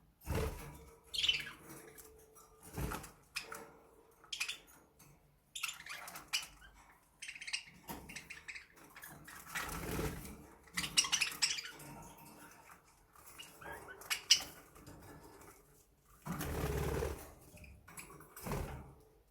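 Pet budgerigars chirping in short, scattered calls, with several louder bursts of wing flapping.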